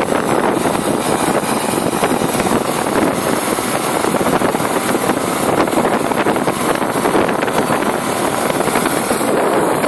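Small brush-cutter engine mounted on a bicycle, running steadily under load as it drives the bike along.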